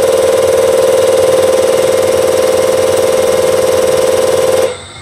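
Diesel injector test bench running a high-pressure output test on a Bosch piezo injector: the pump drive and firing injector make a loud, steady drone that cuts off suddenly near the end as the test stops.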